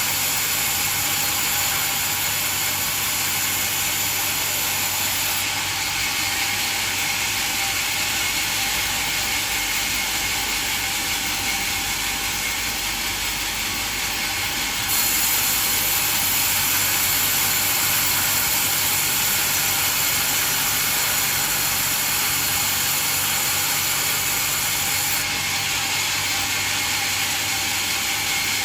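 Band sawmill running steadily, its blade cutting through a coconut log with a continuous, high, noisy whir. The sound changes abruptly a few times.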